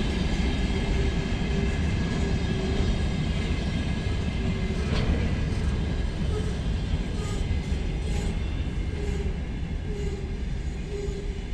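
Loaded freight wagons, hopper cars, rolling past with a steady wheel-on-rail rumble and occasional wheel clicks. The sound eases off as the last wagon goes by near the end.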